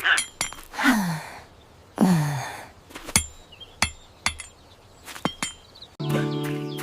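Cartoon sound effects: two falling sighs or grunts from a character, then about five sharp clinks with a short high ring, like a flint being struck to make a spark that doesn't catch. A steady music chord comes in near the end.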